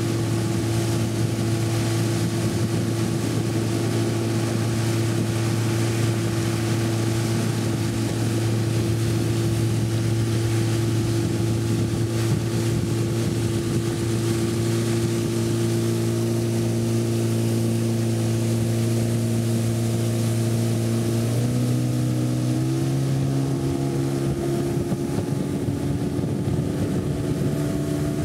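Small motorboat's engine running steadily under way, with a constant hiss over it. Near the end its pitch rises in two quick steps as the engine speeds up.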